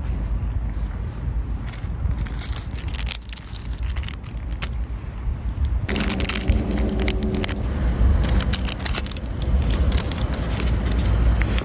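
Crinkling and ripping of a drip-coffee bag's foil packet being torn open by hand, busiest from about six to nine seconds in, over a steady low rumble of wind on the microphone.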